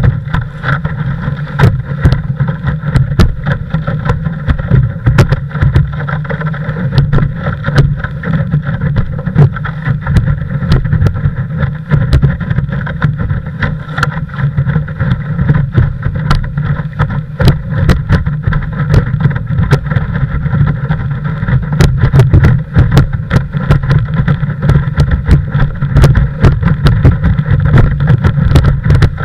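Windsurf longboard running fast over choppy water, heard through a camera mounted on its nose: a steady deep rush of wind and water with frequent sharp slaps and knocks as the hull hits the chop, more of them in the second half.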